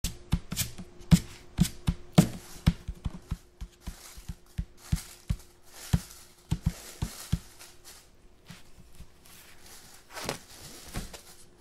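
A quick, irregular run of sharp taps and knocks, about two a second, that thins out after about eight seconds, followed by a short scraping rustle near the end, over a faint steady hum.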